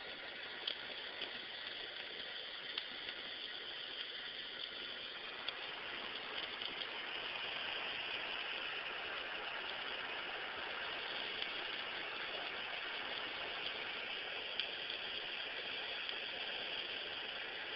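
Handheld butane torch flame hissing steadily as it is played over a glazed ham to caramelize the sugar glaze, with a few sharp ticks in the first several seconds; the hiss grows slightly louder about six seconds in.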